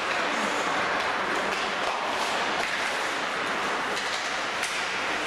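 Steady ice hockey rink noise: skates scraping and carving the ice with the hiss of the arena around it. A sharp click of stick or puck comes near the end.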